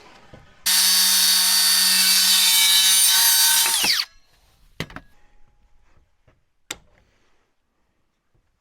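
An electric power saw cutting through a wooden board for about three seconds, its motor whining down as the cut ends. Two sharp wooden knocks follow.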